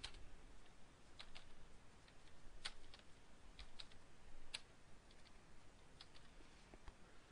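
Faint computer-keyboard typing: single keystroke clicks at an uneven pace, with short pauses between groups of keys.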